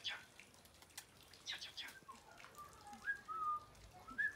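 Short whistled notes, each rising and then held briefly, repeated several times in the second half, after two clusters of quick, sharp, falling bird chirps, one at the start and one about a second and a half in.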